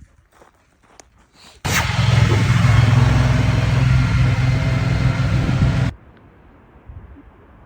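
A loud, steady engine drone with a low hum, starting abruptly about a second and a half in and cutting off suddenly about four seconds later, leaving a quieter background noise.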